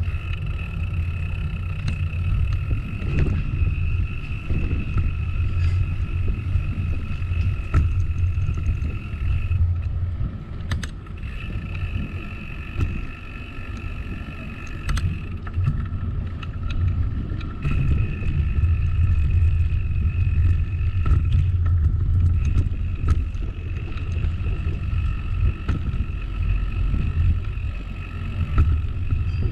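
Riding a bicycle on a concrete path: a continuous low rumble of tyres and wind on the mounted camera. Over it, a steady high-pitched whine stops and starts several times.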